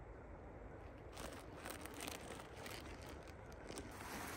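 Heavy canvas tent fabric rustling and crinkling as it is pulled and spread out on the ground, in irregular scrapes starting about a second in and growing louder near the end.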